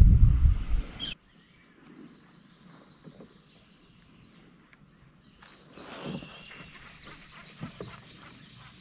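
A low wind rumble on the microphone for about the first second, cutting off abruptly. After it, birds chirp faintly in short high notes, with scattered light knocks and clicks in the second half.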